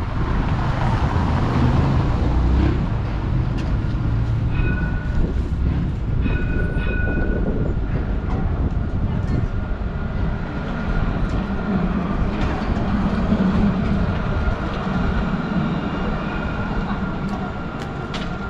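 Light-rail tram passing close by: a steady rumble with a thin, high squealing tone that comes and goes.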